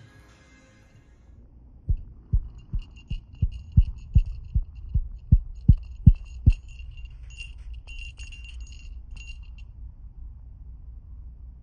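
About a dozen deep, evenly spaced thumps, roughly two and a half a second, growing louder, with a faint high jingling over them that stops near the end.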